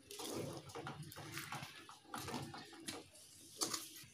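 A spatula stirring and scraping thick, wet jaggery-and-rice batter around an aluminium pot, in repeated squelching strokes with a sharper scrape near the end.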